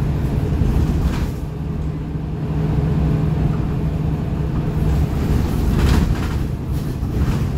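Mercedes-Benz Citaro O530G articulated bus with ZF Ecomat automatic gearbox under way, heard from inside the saloon: a steady low engine drone with road and body noise. The drone eases about five seconds in, and a short hiss follows about a second later.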